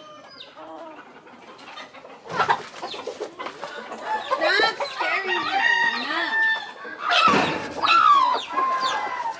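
Chickens clucking and calling, several at once, growing busy about two seconds in, with a rooster crowing near the end.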